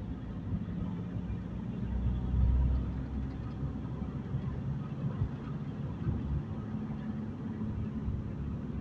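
Steady low rumble of a car's road and engine noise heard from inside the cabin while driving, with a brief swell in the low rumble about two seconds in.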